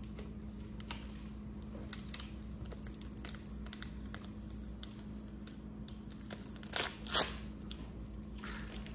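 Clear plastic protective bag crinkling and tearing as fingers peel it off a new kitchen appliance, with two louder crackles close together about seven seconds in. A faint steady hum runs underneath.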